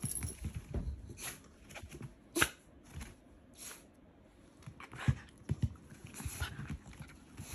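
An excited Shiba Inu greeting up close: short, irregular snuffling and breathy dog sounds with paws shuffling on a tatami floor, and a few sharp taps, the loudest about two and a half seconds in and again about five seconds in.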